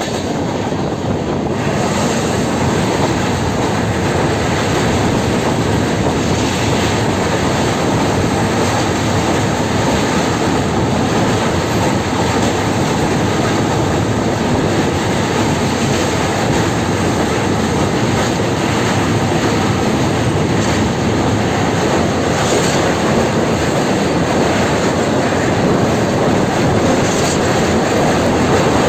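Janshatabdi Express passenger train running along the track: a loud, steady rumble and rattle of wheels on rails.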